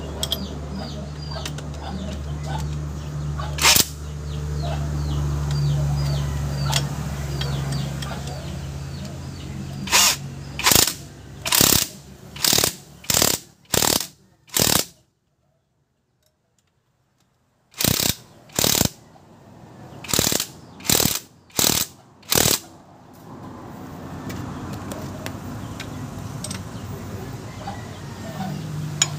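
Cordless impact wrench run in a string of short bursts, about one every half second or more, on the bolts of a front steering knuckle with the wheel off. Before them there is a steady low hum. The sound drops out completely for about three seconds between two sets of bursts.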